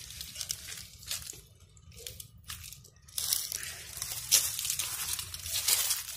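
Irregular crunching and rustling of footsteps over dry leaves and grass while walking, denser and louder in the second half.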